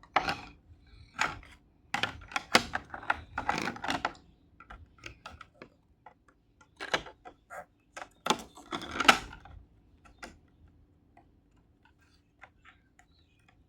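Irregular clicks and taps of jigsaw puzzle pieces being picked up, set down and tried against each other, with busier rattling stretches about 3 to 4 seconds in and again about 8 to 9 seconds in.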